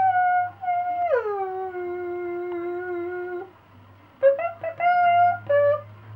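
A person hooting a tune through a long cardboard wrapping-paper tube. A long held tone slides down about a second in and holds, then after a short pause comes a run of short notes.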